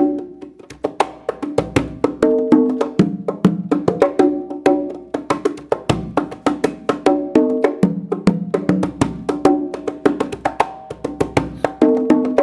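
Conga drums played in a quick, steady rhythm of sharp strikes. The pattern repeats about every six seconds.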